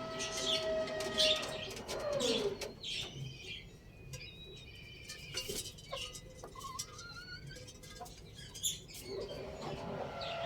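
A rooster's crow, a long held note that falls away at its tail about two and a half seconds in. Small birds chirp through the quieter middle, and another crow begins near the end.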